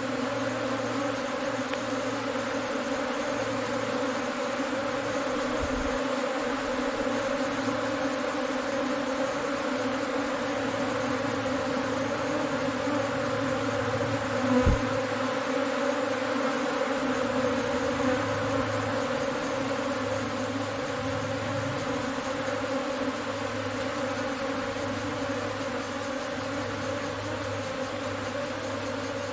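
A honeybee swarm giving a dense, steady buzzing hum as it clusters on a rock face and moves into a crevice to take it as a new nest. A brief low thump comes about halfway through.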